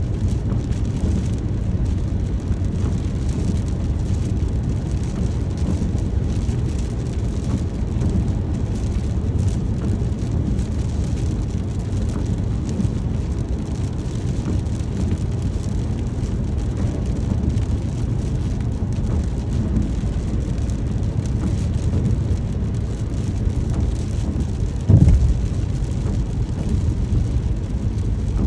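Steady rain with a deep rumbling undertone, and one short low thump about 25 seconds in.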